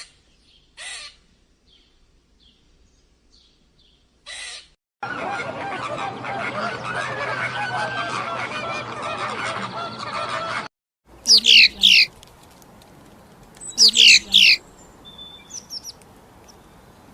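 A run of separate animal-call recordings, mostly birds. Short sharp calls come first, then a dense clamour of many calls in the middle. In the last third come two loud bursts of quick, falling bird cries.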